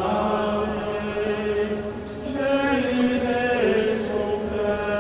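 Slow monastic plainchant sung by men: a single melody line of long held notes that steps to new pitches about two and a half and three and a half seconds in.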